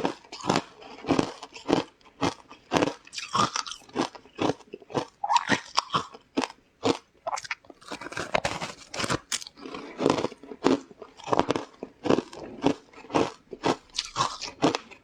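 Close-up chewing and biting of crunchy food: rapid, irregular crunches a few times a second.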